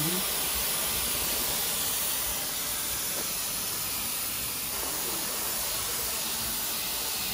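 Cryofos cryotherapy gun blowing a steady, hissing jet of cold carbon dioxide onto the skin to chill it to a thermal shock.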